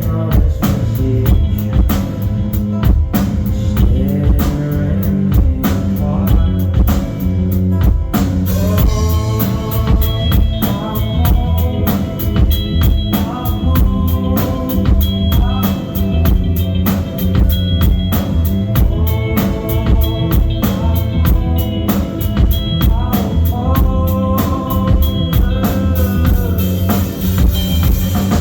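Live rock band playing an instrumental passage of the song: a drum kit keeps a steady, dense beat under the bass, and melodic instrument lines come in about eight seconds in.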